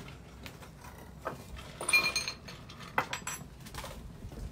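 Kitchen utensils and dishes being handled: a few sharp knocks and one ringing metallic clink about two seconds in.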